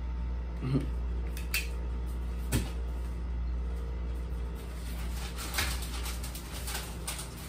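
Handling noise from items in a cardboard box being rummaged through: a few separate light knocks and clicks, then a quicker run of clicks and rustling near the end, over a steady low hum.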